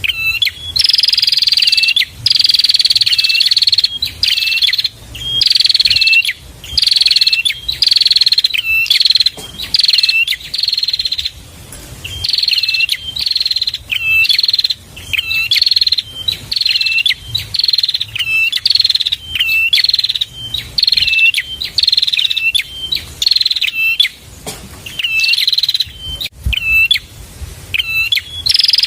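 Prinia (prenjak) song: a loud, high, buzzy note of about a second, falling slightly in pitch, repeated over and over about every second and a half, with short chip notes between the phrases.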